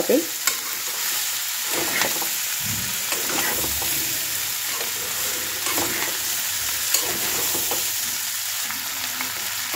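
Paneer and vegetables sizzling in spiced oil in a pan as they are stirred and sautéed into the masala. The steady frying hiss is broken a few times by short scrapes and knocks of the stirring utensil against the pan.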